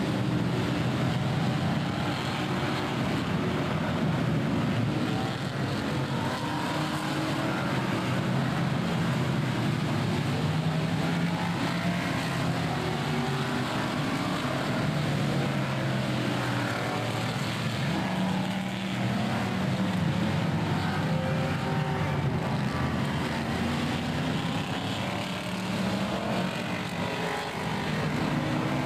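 Vintage race cars, mostly American V8s such as Shelby Mustang GT350s, Corvettes and Cobras, running hard through a corner. Their engines overlap in a continuous sound, with pitches rising and falling as the cars accelerate, shift and pass by.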